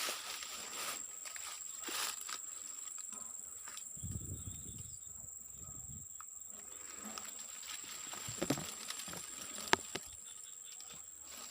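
Steady high-pitched insect whine over rustling and handling noises, with a low rumble of the microphone being bumped about four seconds in and a sharp click near the end.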